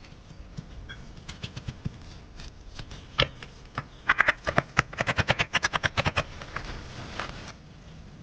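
A rapid run of sharp knocks and clicks. A few are scattered at first, then they come thick and loud at about six to eight a second around the middle before thinning out.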